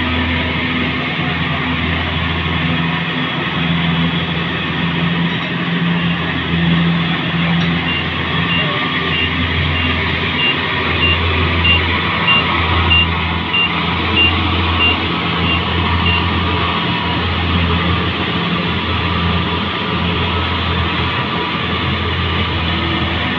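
Engine of a rice combine harvester running steadily with a low hum. For about eight seconds in the middle, its reversing alarm beeps about twice a second.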